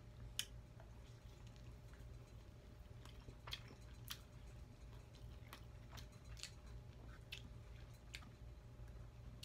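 A person chewing and biting into fried buffalo chicken wings close to the microphone: quiet, scattered sharp mouth clicks and crunches, about eight in all. A low steady hum runs beneath.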